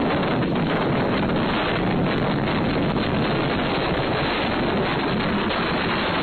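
Strong gusty wind blowing hard onto the microphone: a steady, loud rush of noise.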